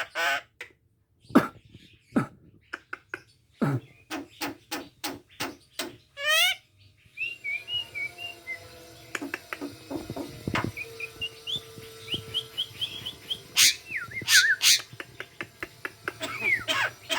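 Javan myna (jalak kebo) mimicking a harsh cough: a few sharp cough-like bursts and a quick run of clicks come first, with a rising call at the end of them. A busier stretch of short whistled chirps and clicks follows.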